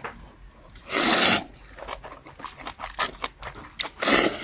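A person slurping instant ramen noodles, in two long noisy slurps: one about a second in and one near the end, with quieter chewing between them.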